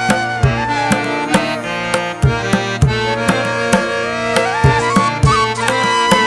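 Instrumental background music: a melody gliding up and down over steady, regular drum strokes.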